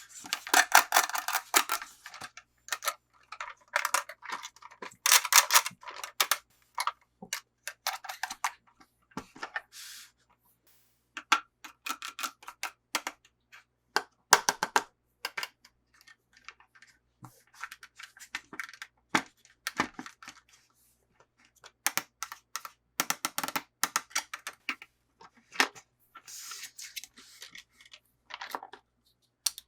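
Hands unboxing a toy: irregular clicks and taps with short crinkly rustles of plastic and cardboard packaging.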